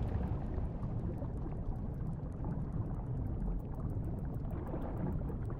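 Underwater ambience: a steady low wash of water noise, with faint rapid clicks coming in about halfway through.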